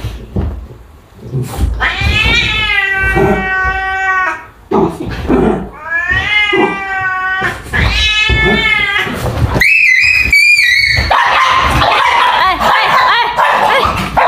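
A domestic cat yowling a warning in three long, drawn-out wails that bend in pitch. About ten seconds in comes a sharp, high, wavering shriek, then a harsh screeching scuffle as the cat and a small dog tangle.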